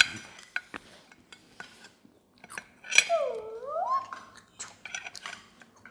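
Metal spoons and forks clinking and scraping on a ceramic plate and bowls, a string of sharp clinks with a loud one at the start and another about three seconds in. Right after the second comes a brief pitched sound, about a second long, that dips and then rises.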